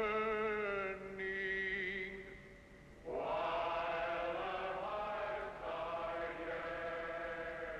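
Music with long, held choir-like chords. The first chord fades about two seconds in, a new one enters sharply after three seconds, and it shifts again later.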